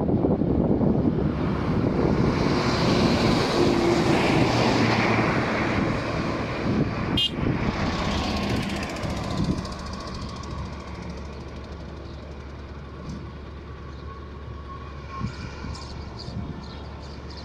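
Banalata Express passenger train running along the track, loud at first and fading over the first ten seconds or so as it moves away, leaving a low distant rumble. A brief high-pitched sound cuts through about seven seconds in.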